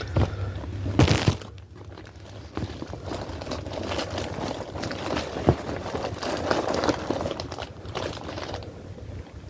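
Handling noise of survival gear being packed into a bag: rustling and crinkling of fabric and packaging with scattered clicks and knocks, a louder knock about a second in and a sharp click about five and a half seconds in.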